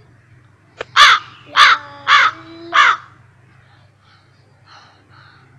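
A crow cawing four times, about half a second apart, each call harsh and falling slightly in pitch, after a short click.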